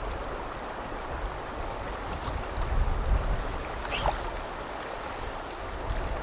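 River water running over a shallow riffle, with wind buffeting the microphone in uneven low rumbles; a short high squeak about four seconds in.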